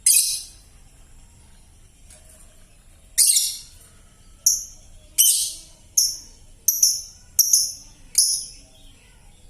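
Young lovebird under five months old giving short, harsh, screechy calls: one at the start, then a run of about nine from about three seconds in, coming closer together. The chatter is still hoarse and off-tone, as in a bird whose voice has not yet settled.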